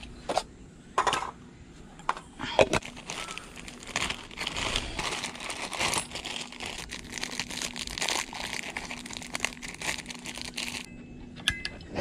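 Crinkling and rustling of some material being handled, with a few separate sharp clicks in the first few seconds, then dense irregular crackling that stops suddenly about a second before the end.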